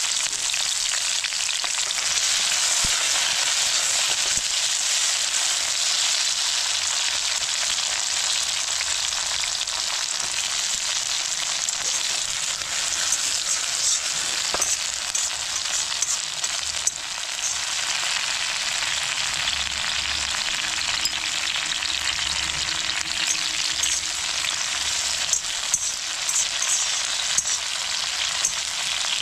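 Garlic frying in hot oil in a pan: a steady sizzle with scattered crackles and pops, more of them in the second half.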